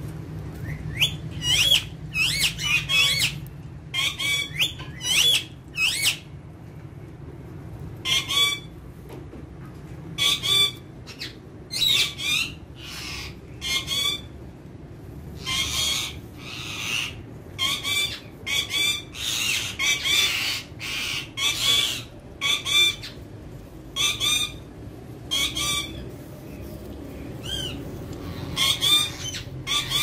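Alexandrine and rose-ringed parakeets giving short, harsh squawks again and again, some calls bending up or down in pitch, in quick runs with brief pauses between.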